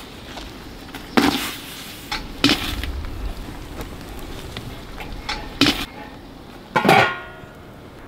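Metal cookware clanking: several separate sharp knocks, the last two with a brief metallic ring, as a lobster is put into a blackened metal pot over a campfire.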